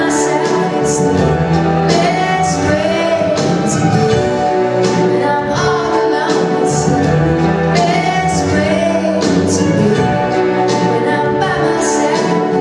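Music with singing over sustained chords.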